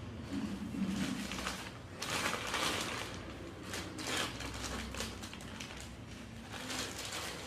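Handling noise from a ceiling fan and its packaging being unboxed: irregular rustling and scraping with scattered clicks and light knocks.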